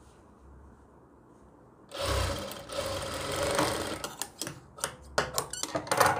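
JACK industrial lockstitch sewing machine running for about two seconds, sewing a short stretch of seam, then stopping. It is followed by a string of short, sharp clicks and snips as the thread is trimmed with tailor's scissors.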